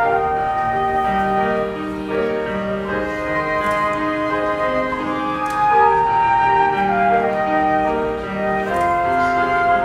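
Two flutes playing a slow melody in duet with long held notes, over a keyboard accompaniment in the lower notes.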